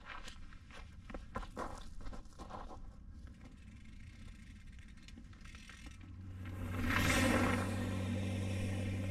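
Small clicks and scuffs on gravelly dirt, then, about six seconds in, a hardtail mountain bike starts rolling down a dirt track: tyre noise and wind on the helmet camera swell sharply, over a steady low hum.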